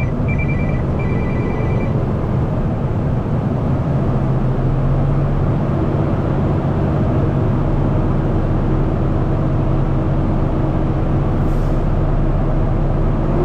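Diesel truck engine held at raised revs on the accelerator to build air-brake pressure up to governor cutoff, a steady loud roaring. A high-pitched beeping sounds in the first two seconds.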